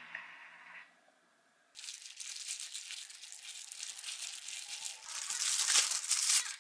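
Disposable plastic glove crinkling as a hand kneads flour dough for sujebi in a wooden bowl. It starts about two seconds in and grows louder near the end.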